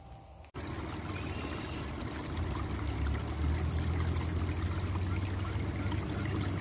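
Small stream trickling over rocks, a steady flow of water that cuts in abruptly about half a second in, with a low rumble underneath.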